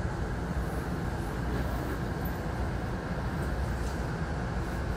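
Hankyu Takarazuka Line commuter train running along the track, a steady low rumble heard from inside the car.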